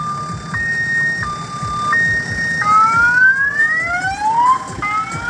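Electronic siren on an odong-odong tour train. It sounds a two-tone hi-lo alternation, then switches about two and a half seconds in to repeated rising whoops, over the low rumble of the vehicle's engine running.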